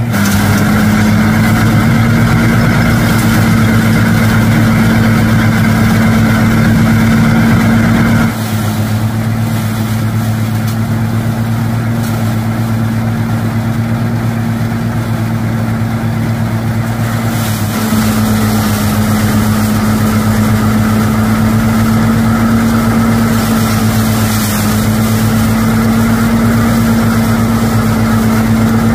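Small engine-driven mini rice thresher running steadily while rice is fed through it, a loud, even mechanical drone with a low hum. The tone shifts slightly about 8 seconds in and again near 18 seconds.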